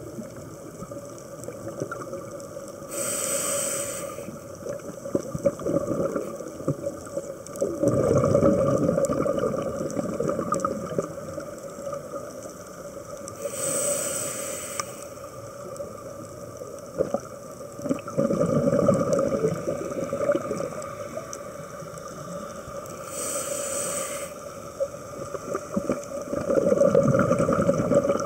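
Scuba diver breathing through a regulator underwater. A short hiss of inhalation comes three times, about every ten seconds, and each is followed by a longer, louder burble of exhaled bubbles.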